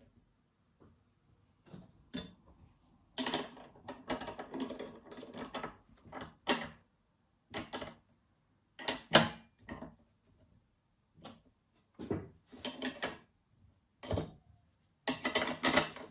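Metal hardware clinking and clattering in short irregular bursts as steel nuts, spacers and threaded rod are handled and fitted on a small hand-built press. There is one brief metallic ring about two seconds in.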